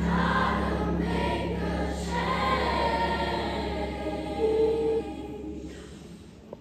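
Large mixed choir singing, the final chord held and then fading out about five seconds in.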